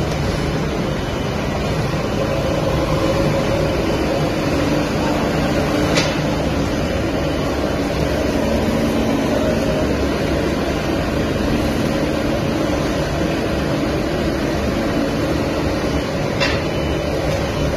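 Rotary drum biochar carbonization furnace line running, a steady machinery hum with a low drone, broken by two short sharp clicks, about six seconds in and near the end.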